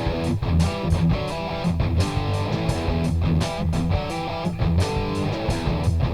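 Background music: guitar-driven rock with a steady drum beat.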